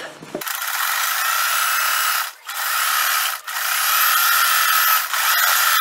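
Electric sewing machine running steadily as it topstitches through the fabric at the base of a waistband. It starts about half a second in and stops for a moment two or three times along the way.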